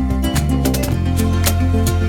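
Background music with a steady beat, with plucked guitar.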